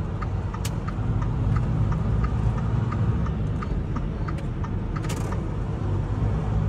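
Truck's diesel engine running, heard from inside the cab as a steady low rumble, with the turn-signal relay clicking evenly about three times a second for a left turn.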